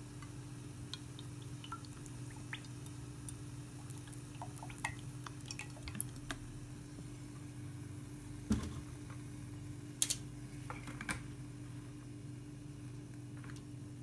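Sunflower oil in a cast iron frying pan: scattered light ticks and drips, a few louder ones past the middle, over a steady low hum.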